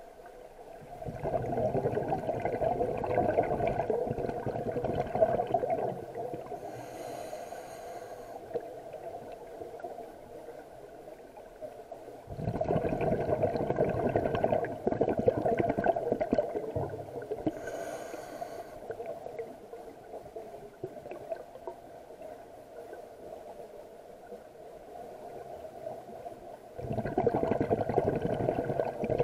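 A scuba diver breathing through a regulator underwater. Three bursts of exhaled bubbles, each a few seconds long, come roughly every eleven seconds, with a brief, fainter hiss of inhalation through the regulator between them.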